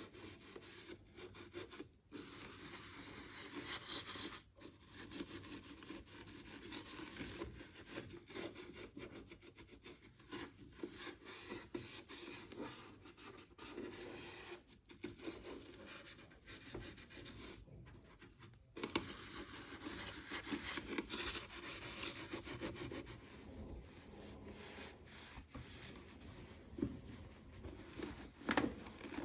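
Steady rubbing and scrubbing on a washing machine's surfaces during hand cleaning, in continuous strokes broken by brief pauses, with a few sharper knocks near the end.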